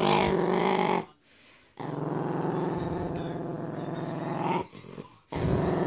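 Jack Russell terrier growling in long, drawn-out steady growls that sound like a motorbike engine. The first growl breaks off about a second in, a longer one follows after a short pause, and another begins near the end.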